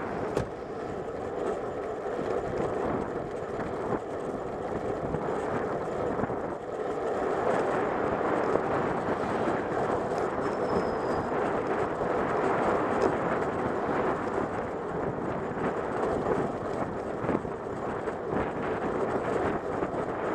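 Steady rushing noise of riding a bicycle along a town road: tyres on tarmac and wind on the microphone, a little louder from about seven seconds in.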